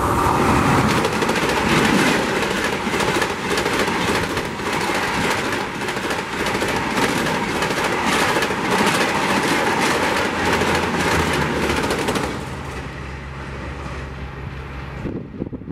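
Push-pull Rajdhani Express passing close at high speed: a loud rush of air with rapid clattering of wheels over the rail joints. About twelve seconds in it drops to a quieter, steady low hum.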